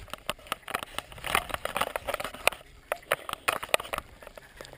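Footsteps crunching through dry grass, dead leaves and twigs, an irregular run of sharp crackles and snaps that thins out near the end.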